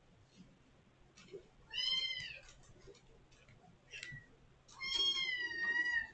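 Kitten meowing loudly: two long, high mews, the first arching up then down and the second longer and slowly falling, with a short mew between them. It is a kitten calling at a closed door to be let out.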